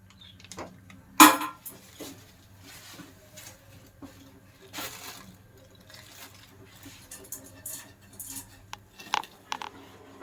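Kitchen utensils and pots clinking and knocking in scattered, irregular strokes, the loudest about a second in.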